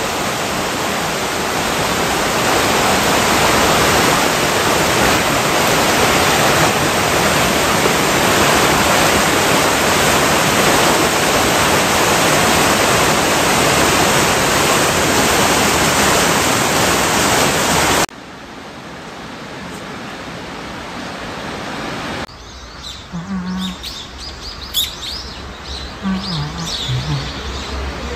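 Stream water rushing steadily over a stepped stone weir. It cuts off suddenly about two-thirds of the way through, leaving a much quieter scene where small birds chirp over a low rumble.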